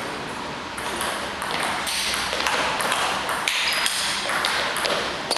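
Table tennis rally: the ball clicking off the players' bats and the table in a quick run of hits.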